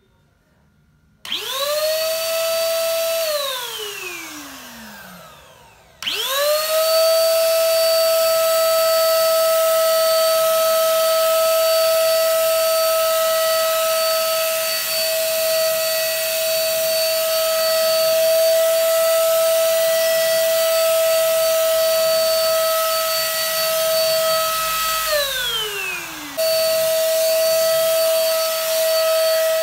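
Mollar MLR ESG 300 electric spray gun's motor running with a high steady whine over a rush of air as it sprays thinned wall paint. It starts about a second in, runs briefly and winds down with a falling pitch, then starts again for a long steady run, falls off for a moment near the end and starts once more.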